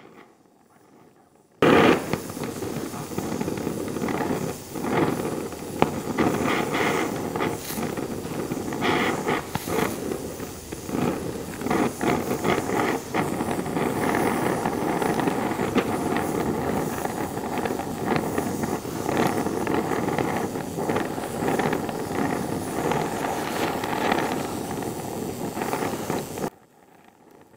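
Oxy-fuel torch flame burning on the joint while bronze brazing rod is melted into a cast iron lever: a steady rushing noise with irregular crackles. It cuts in suddenly about a second and a half in and stops suddenly shortly before the end.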